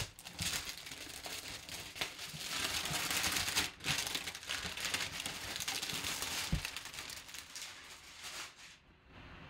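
Clear plastic shrink wrap being crinkled and torn off a cardboard box, a dense rustling crackle that is loudest a few seconds in and dies away near the end.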